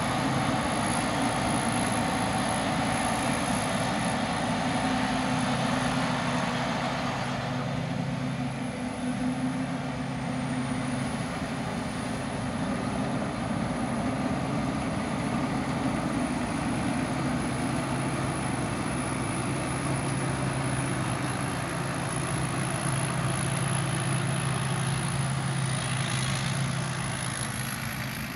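Rice combine harvester running steadily as it cuts and threshes rice: a steady engine drone with a thin high whine above it.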